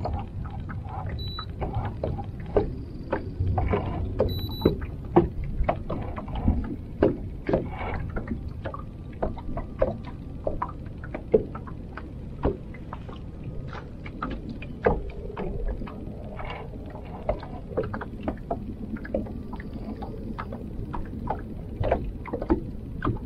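Small waves slapping against the hull of a fishing boat in irregular sharp knocks and splashes, a few a second, over a steady low rumble.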